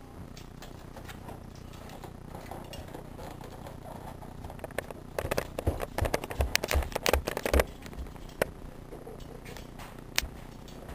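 Footsteps on a stairway as people climb it: a quick run of about eight heavy steps lasting two to three seconds near the middle, over a low steady background hiss.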